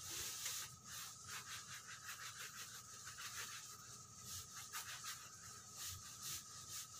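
Faint, irregular wiping strokes of a paper wipe rubbing over the glass of a framed picture.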